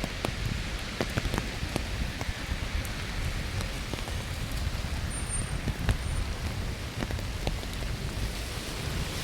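Rain falling steadily, with sharp drop impacts ticking irregularly throughout and a low rumble underneath.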